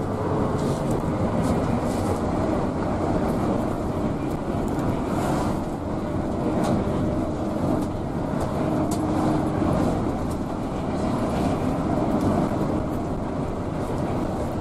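Steady engine and road rumble inside the cabin of an intercity bus being driven hard at full throttle at speed.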